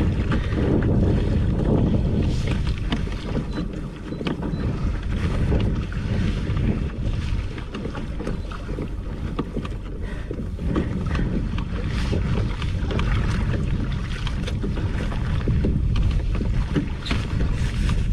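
Wind buffeting the microphone on a kayak on choppy open water, a steady low rumble with water lapping at the hull.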